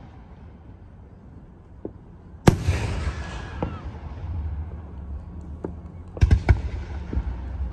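Aerial firework shells bursting in a display. A loud bang comes about two and a half seconds in and echoes away, a few lighter bangs follow, and a quick cluster of sharp bangs comes near the end.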